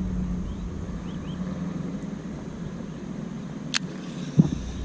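A steady low rumble runs throughout, with a few faint high chirps in the first second. Near the end comes a sharp click, then a louder low knock.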